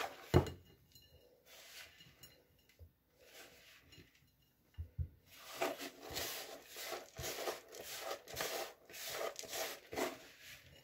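A hand scraping a crumbly almond and peanut filling out of a plastic bowl onto a plate: a knock about half a second in, then a run of repeated rubbing, scraping strokes against the bowl in the second half.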